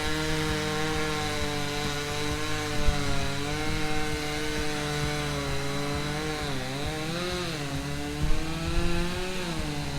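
Two-stroke Stihl chainsaw running at high revs while cutting into a tree trunk to fell it. Its pitch sags twice near the middle as the chain takes load in the cut, then recovers.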